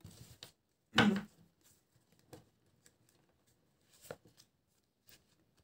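Oracle cards handled on a tabletop: a brief, sharper sound about a second in, then a few faint taps and rustles of card stock.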